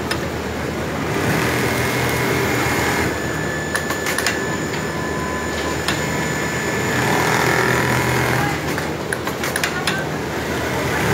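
Large-format programmable template sewing machine running a stitch pattern, with a steady mechanical whine and needle chatter that rises and eases in stretches of a couple of seconds as the template carriage moves, and a few sharp clicks.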